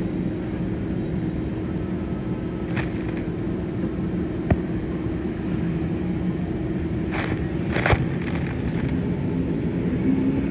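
Steady engine rumble with a constant low hum, from airport aircraft and ground vehicles, with a few brief knocks about 3, 4½, 7 and 8 seconds in.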